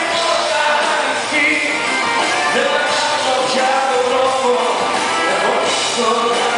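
Live band playing with a male singer, his voice amplified over the arena sound system.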